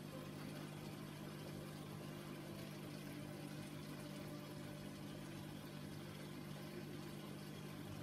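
Aquarium pump humming steadily, with a faint even hiss of water and bubbles.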